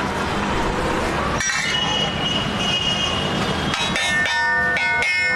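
Busy street traffic with vehicle horns honking over a steady noisy din. One high horn is held from about a second and a half in, and several horns overlap near the end.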